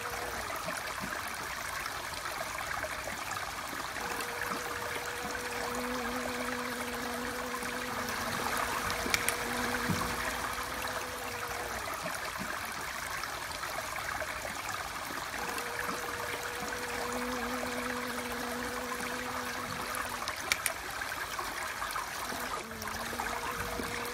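A steady rushing like running water, with a honeybee's low wing buzz holding one steady pitch that comes in for several seconds at a time, twice, and again near the end.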